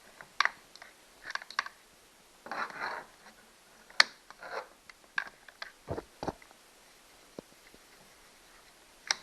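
Hand tools working on a Stihl 029 chainsaw's housing and parts during disassembly: scattered sharp clicks and taps, a couple of short scrapes, and two dull knocks around the middle.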